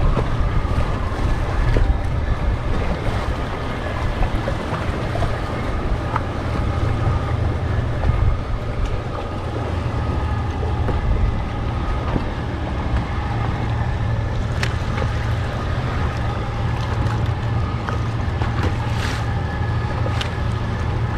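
A boat engine running steadily, with wind buffeting the microphone and water washing against the hull. A couple of short sharp clicks come through past the middle and near the end.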